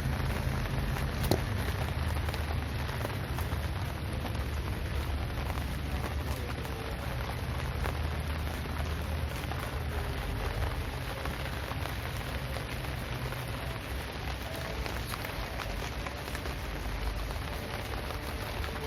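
Steady rain falling and pattering on surfaces, with many single drops ticking through it over a low rumble. One sharp tap stands out about a second in, and the low rumble eases off about fourteen seconds in.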